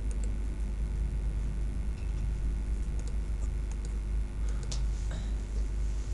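A few scattered computer mouse clicks over a steady low electrical hum.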